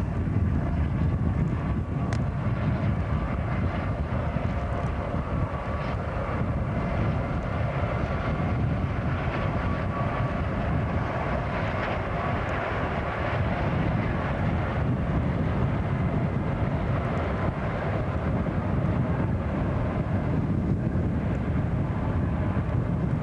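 Steady, continuous roar of a car pacing, at high speed, a sixteen-unit light-engine move of EMD and GE diesel locomotives working hard; the locomotives' engine rumble mixes with the car's road noise.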